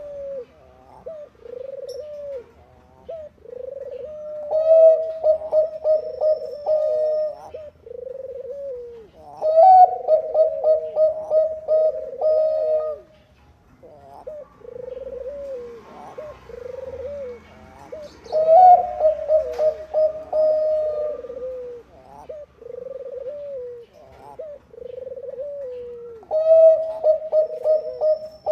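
Zebra dove (Bangkok-strain perkutut) singing: a string of soft rounded coos, about one a second, broken every several seconds by a louder run of quick staccato cooing notes. The louder runs come four times.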